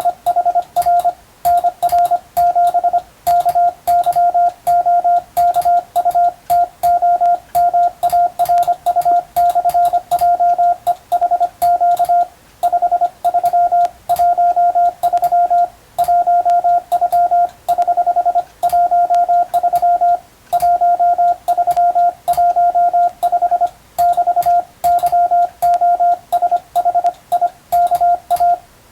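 Morse code (CW) sent by hand: a steady beep of about 700 Hz keyed on and off in rapid dots and dashes, with short gaps between characters and a faint click at each keying.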